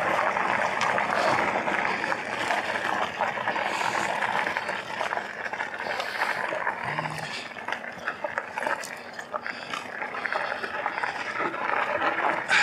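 E-bike rolling along a loose gravel trail: the tyres make a steady crunching hiss with small stone ticks, mixed with wind rushing over the microphone.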